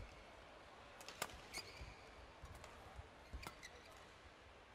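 Badminton rackets striking the shuttlecock in a rally: a handful of sharp, faint cracks at irregular intervals, the loudest just over a second in.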